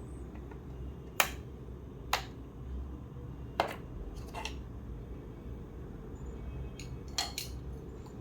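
Sharp clicks and snaps of hard plastic parts and tools being handled as a Philips steam iron is taken apart, about half a dozen separate clicks over a steady low hum.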